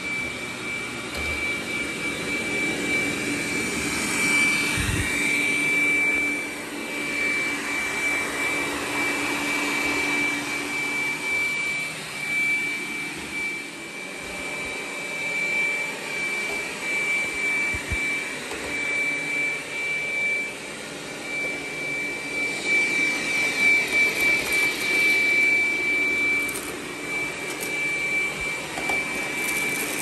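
DreameBot D10 Plus robot vacuum running across a tiled floor, a steady high-pitched fan whine over a rushing suction noise. It grows louder as the robot passes close, about four seconds in and again around twenty-four seconds, then fades as it moves away.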